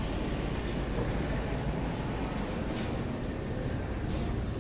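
Window-type air conditioner running: a steady low rushing noise, with a couple of faint clicks in the last two seconds.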